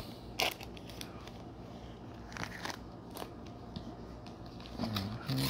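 Trading cards being handled and set down on a tabletop: a few short, sharp clicks spaced out over several seconds.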